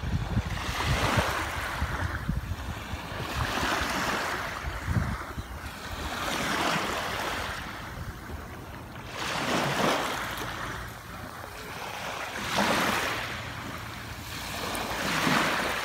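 Small waves washing in over wet sand at the water's edge, a hiss that swells and fades about every three seconds.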